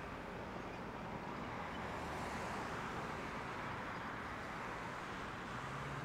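Heavy diesel construction machinery running steadily: a Caterpillar wheel loader and tracked excavator at work, with a low engine hum under an even mechanical noise.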